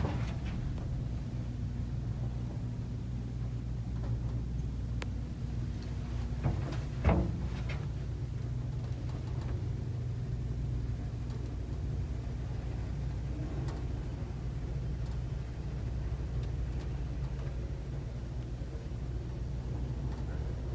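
Steady low hum and rumble inside a Hitachi Build Ace Quality 80II elevator car riding upward, with a single knock about seven seconds in.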